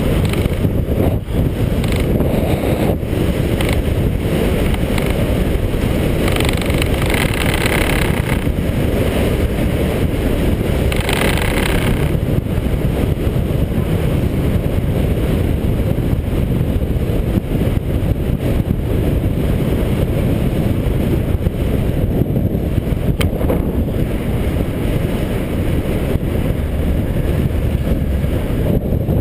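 Wind buffeting the microphone of a GoPro action camera on a road bike moving fast on a road, a steady low rumble. Hiss swells up twice, about six and eleven seconds in.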